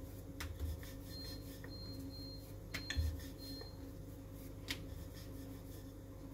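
Faint scattered taps and clicks of hands pressing and handling puri dough on a marble rolling board, with a soft knock about three seconds in, over a steady low hum.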